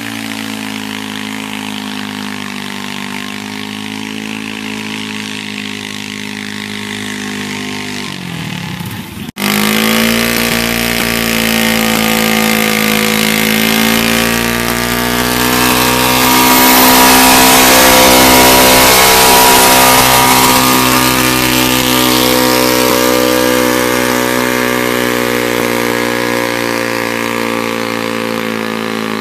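Garden pulling tractor's engine running hard at high, steady revs under load. It is loudest around the middle and slowly fades toward the end. About nine seconds in there is an abrupt break, before which the same kind of engine is heard running more quietly.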